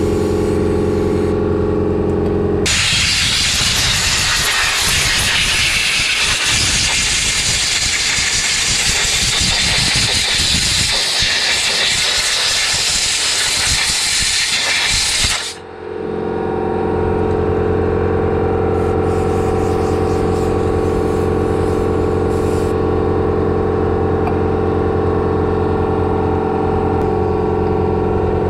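Aerosol brake cleaner sprayed in one long continuous hiss at a motorcycle's rear brake caliper for about thirteen seconds, stopping abruptly. Before and after the spray there is a steady drone of level tones.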